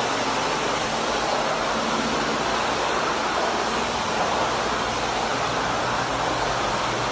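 Jetted tub running: a steady rush of churning water from the jets, with a low hum from the pump underneath.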